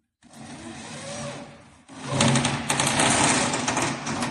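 Handheld electric drill running in two spells: a softer one, then a louder, longer one from about two seconds in.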